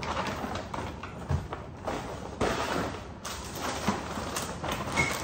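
Grocery bag rustling and packaged groceries being handled and set down on a kitchen counter, with several knocks, the heaviest about two and a half seconds in.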